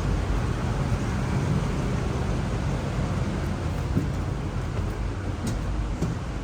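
Freightliner MT45 truck's diesel engine idling steadily, with a couple of faint clicks about four and five and a half seconds in.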